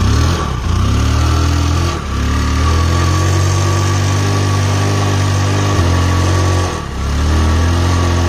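Bajaj Discover 100's single-cylinder four-stroke engine running with hot water, lemon juice and ENO in the crankcase in place of oil, churned through the engine to flush out sludge. Revs rise in the first second, hold steady, dip and pick up again about seven seconds in, and the engine stops right at the end.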